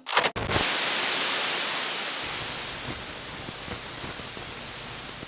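Static-like hiss, like an untuned TV: a few sharp crackles at the start, then a steady loud hiss that eases slightly.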